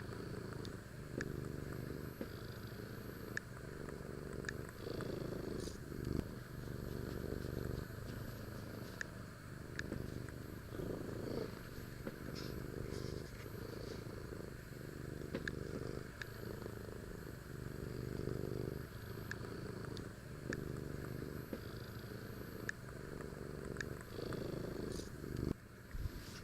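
Kitten purring, a steady low rumble that swells and fades about every two seconds, with light clicks scattered over it.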